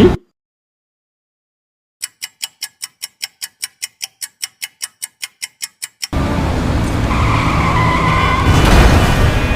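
Sound effects for a car scene: after a silent gap, rapid even ticking at about five a second for some four seconds, then a car skidding with its tyres squealing.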